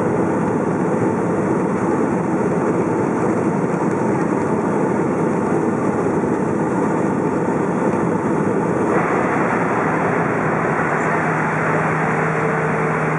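Cabin noise of a Boeing 757 on the ground just after landing: the jet engines and the airflow make a steady rushing sound. About nine seconds in, the higher hiss steps up, and near the end a low steady hum comes in.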